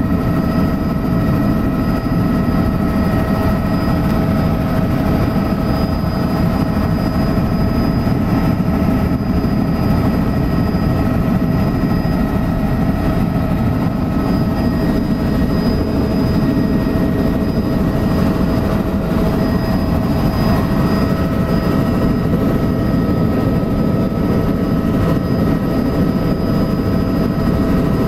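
Helicopter cabin noise in flight, heard from inside: a steady, loud, deep rotor and engine rumble with several constant high whining tones on top, unchanging throughout.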